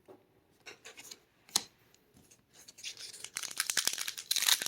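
A few light clicks of cards being handled, then from about three seconds in a dense, growing crinkling and tearing of a booster pack's foil wrapper being ripped open.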